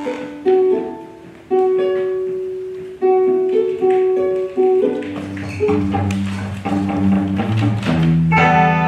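Instrumental music on a plucked string instrument, picking out a slow melody of single ringing notes. About five seconds in, lower held notes join underneath, and the sound grows fuller near the end.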